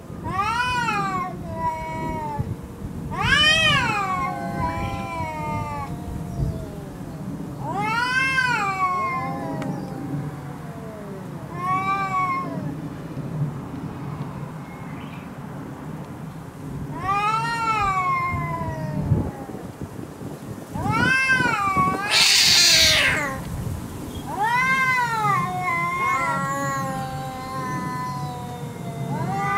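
Two cats, a black cat and a brown tabby, in a close standoff: long drawn-out yowls that rise and fall in pitch, repeated every few seconds over a steady low growl. A short hiss comes about three-quarters of the way through.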